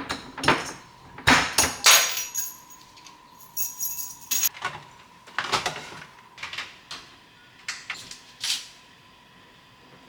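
Household handling sounds: a run of knocks, clinks and clatters of things being moved and set down, busiest in the first half and thinning out toward the end, over a faint steady hum.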